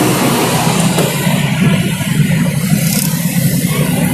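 Car driving, heard from inside the cabin: a loud rushing noise for about the first second, then a steady low engine and road hum.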